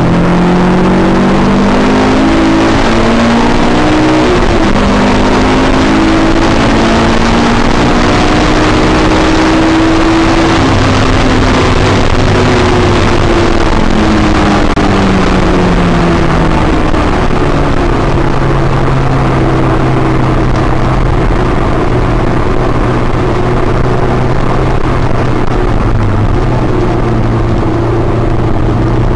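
Honda S2000's four-cylinder engine heard from inside the cabin on track, its pitch climbing in stages through the first ten seconds or so, falling away from about twelve seconds in, then holding a steady note to the end. A steady rush of road and wind noise runs underneath.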